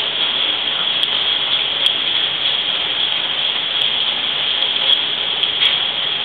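Tropical-storm rain falling heavily: a steady hiss with a few scattered sharp ticks.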